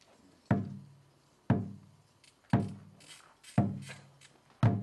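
Five heavy knocks at a steady pace of about one a second, each with a short, low ringing boom after it.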